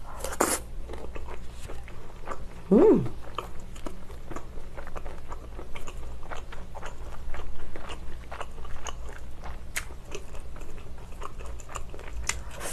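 Close-miked chewing of a fried seaweed roll dipped in tteokbokki sauce with sesame leaves: a crisp crunching bite just after the start, then steady small crunches and wet chewing. About three seconds in there is a short hummed "mm".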